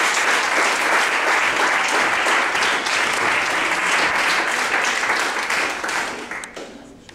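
Audience applauding steadily, the clapping dying away about six seconds in.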